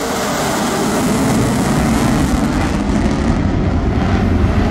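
F-35 Lightning II fighter jet making a pass on afterburner, its single turbofan engine heard as a steady, loud rush of jet noise that grows a little louder.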